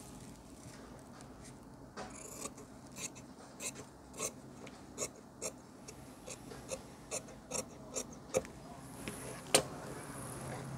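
Large tailoring shears cutting through blouse fabric: a run of about a dozen short snips as the blades close through the cloth, starting about two seconds in, with one sharper knock near the end.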